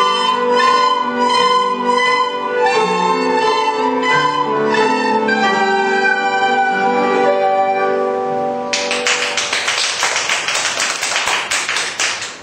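Closing bars of a classical piece: piano chords under a held melody line. About nine seconds in the music ends and audience applause takes over, dying away just before the end.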